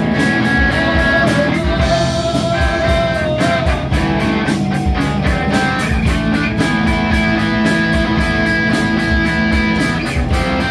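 A live rock band playing, led by guitar over bass, with a steady beat.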